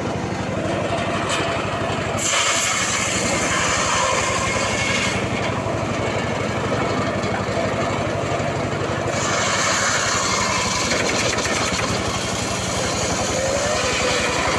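Engine-driven saw running steadily while cutting into a mahogany log in two passes: a harsh hiss of cutting joins the engine about two seconds in for about three seconds, then comes back from about nine seconds on.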